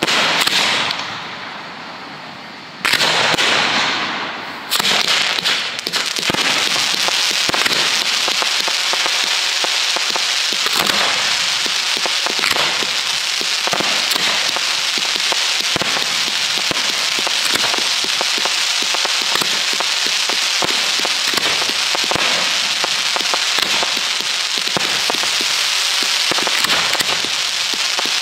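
1.3G display fireworks going off: three sudden loud bursts in the first five seconds, each fading off, then from about five seconds a continuous dense crackling with many sharp pops.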